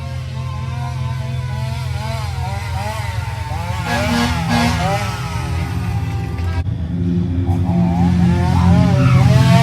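Siren wailing in a fast up-and-down yelp, about three sweeps a second, over a steady low rumble, getting louder.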